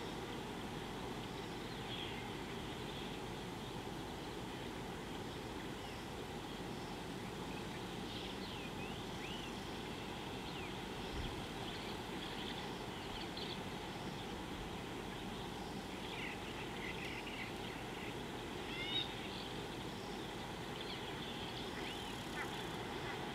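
Scattered short, high bird calls with quick rising and falling pitch, bunching about a third of the way in and again past the middle, over a steady outdoor background hiss.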